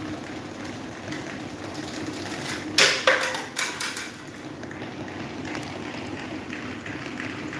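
Small electric table fan running with a steady hum, and a quick cluster of sharp knocks about three seconds in.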